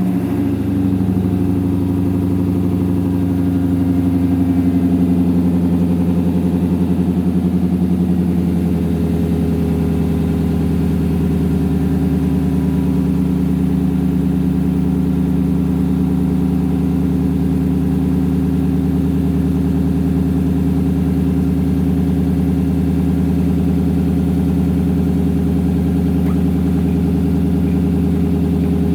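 Lexus LS460's 4.6-litre V8 idling loud and steady through straight pipes with the mufflers deleted, just after a cold start. The raised cold idle eases down slightly about nine seconds in.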